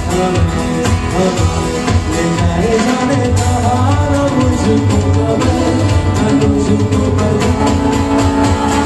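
Live music on stage through a PA: a man singing into a microphone over instrumental accompaniment with a steady beat.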